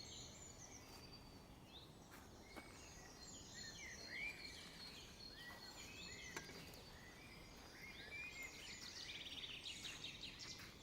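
Faint birdsong: many short chirps and whistles from several birds, over a low outdoor hiss.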